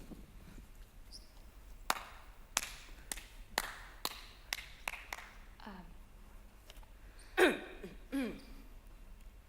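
About eight sharp taps or knocks at an uneven pace over about three seconds, then two short voice-like sounds that fall in pitch, the first of them the loudest sound here.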